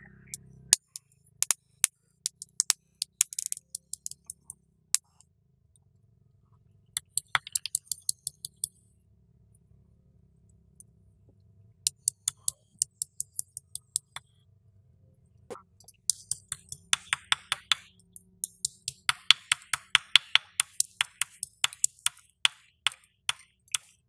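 Stone pestle pounding chilies and garlic on a flat stone: runs of quick, sharp knocks with pauses between them, becoming a fast steady series of about five strikes a second in the last third. Faint background music sits underneath.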